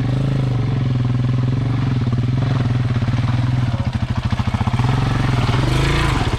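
Single-cylinder dual-sport motorcycle engine running steadily at low revs, its pitch holding level.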